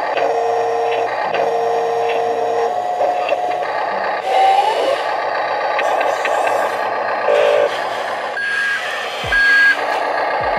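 Huina 1583 RC wheel loader's electronic sound kit playing loud simulated heavy-machine sounds through its built-in speaker, engine running with beeps near the end.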